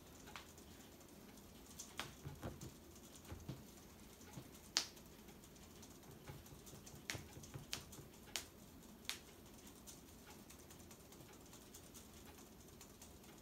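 Faint, irregular clicks and ticks from a sling psychrometer being whirled by hand, its wet cotton-wrapped bulb flinging water. About a dozen scattered ticks over near quiet, stopping about nine seconds in.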